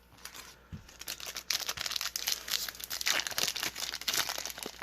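Foil Maximum Gold booster pack wrapper crinkling as it is torn open and handled, in quick irregular crackles that get busier after about a second and a half.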